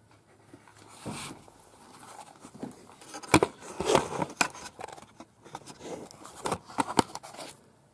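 Irregular rustling with a string of sharp clicks and knocks: movement and handling noise as someone walks with a camera in hand.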